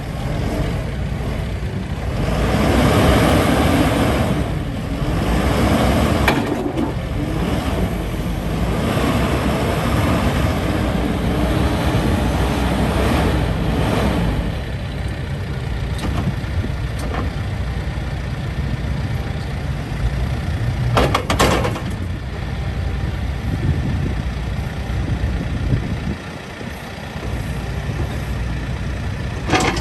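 John Deere 310L backhoe loader's diesel engine running, swelling louder several times in the first fifteen seconds or so. A brief sharp noise comes about twenty-one seconds in.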